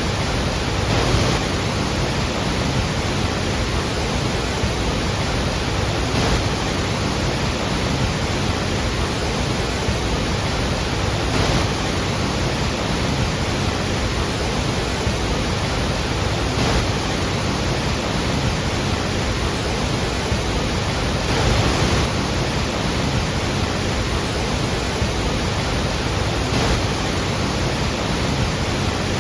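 Falling water of the Iguazu Falls waterfalls: a steady, dense rushing noise spread across all pitches, swelling slightly about every five seconds.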